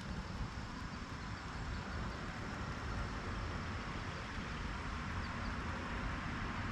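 Steady outdoor rushing noise with a low rumble underneath, even throughout and with no distinct events.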